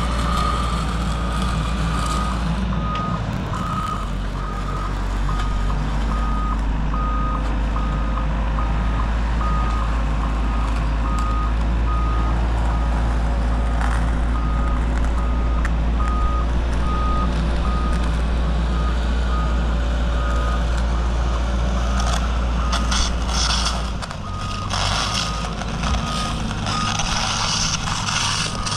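Construction machine's engine running steadily with its reversing alarm beeping about one and a half times a second, as it drags a screed bar through the grit. The engine note changes about 24 seconds in, and a stretch of clattering and scraping comes near the end.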